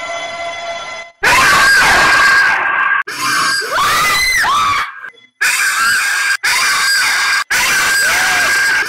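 Women screaming loudly, several screams in a row broken by sudden cuts, their pitch rising and falling. Before the first scream there is a second of steady ringing tone.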